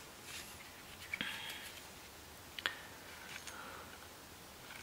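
Quiet room with faint handling noises from gloved hands holding a knife: a brief soft rustle about a second in, then a single sharp click a little past halfway and a few faint ticks.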